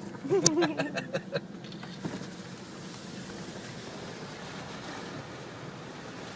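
4WD vehicle on the move, heard from inside the cabin as a steady rushing noise of engine, tyres and wind. A brief voice and a few sharp clicks come in the first second and a half.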